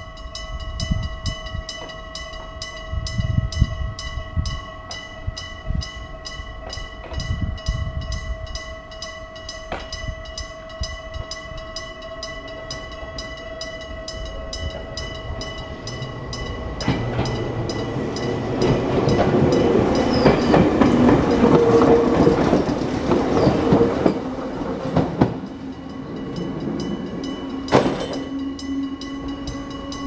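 Old electric-bell level crossing warning bell ringing steadily in rapid, even strokes. Around the middle a rushing noise swells for several seconds and fades. Near the end a low hum comes in as a train approaches the crossing.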